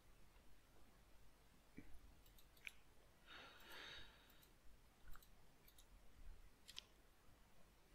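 Near silence with a few faint computer mouse clicks scattered through it, and a soft hiss about three and a half seconds in.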